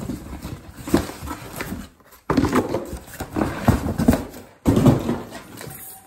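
Cardboard shipping box being unpacked: tape and flaps tearing and rustling, with scattered knocks as the heavy cast-iron low-water cutoff head assembly inside is handled. The sound breaks off sharply twice.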